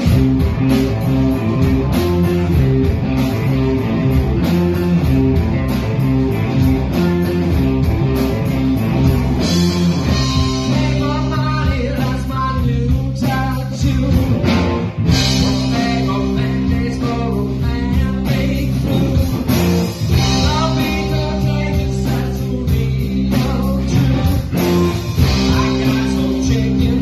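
Live rock band playing loudly: electric guitars and a drum kit, with a voice singing from about ten seconds in.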